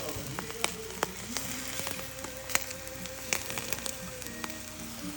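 Background music with long held notes, over scattered sharp crackles and clicks of eggs sizzling in a frying pan.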